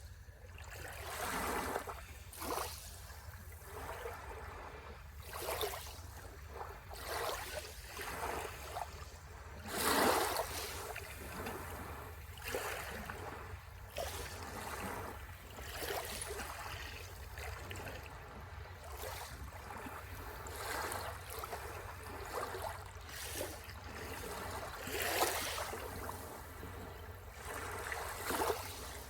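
Sea waves breaking and washing on the shore in irregular swells, the loudest about ten seconds in and another about twenty-five seconds in, over a steady low rumble.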